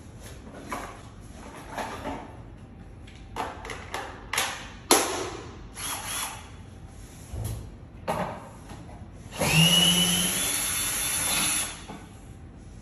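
Clicks and rustles of a tool bag being opened and a cordless drill being handled. About nine and a half seconds in, a Ryobi cordless drill runs for about two seconds, its motor whine rising and then holding steady.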